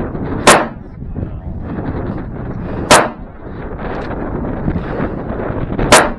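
Three gunshots about three seconds apart, each a sharp crack with a short ring after it, over steady background noise.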